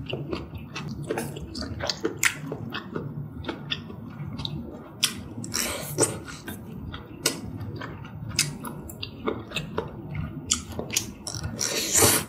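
Close-miked chewing of a mouthful of malatang, a spicy noodle soup: many small wet smacks and clicks of the mouth, with louder airy breaths or sips about six seconds in and near the end.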